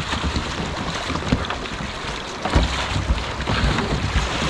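Shallow river water running over stones, with wind buffeting the microphone; the low wind rumble grows stronger about two and a half seconds in.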